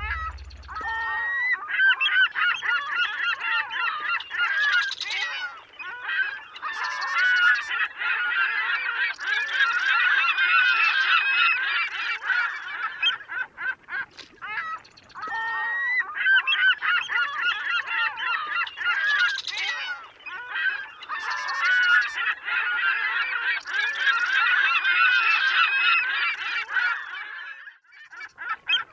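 A flock of birds calling, many honking calls overlapping in a continuous chorus, with a short lull about halfway through.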